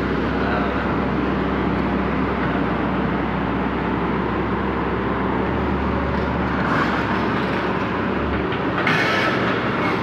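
Hitachi crawler excavator's diesel engine running steadily while its steel tracks clank as the machine moves. Near the end the deep hum drops and a harsher, higher clatter comes in.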